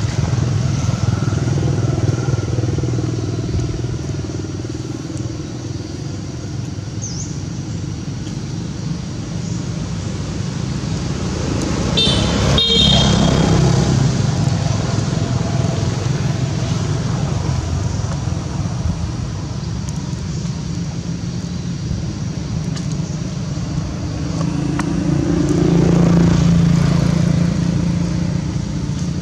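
Road traffic: motor vehicle engines running steadily, swelling as vehicles pass twice, with a brief horn toot about twelve seconds in.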